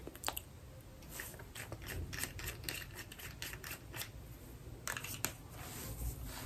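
Faint, scattered small clicks and taps from handling a lipstick tube while applying lipstick, with a couple of sharper clicks about five seconds in.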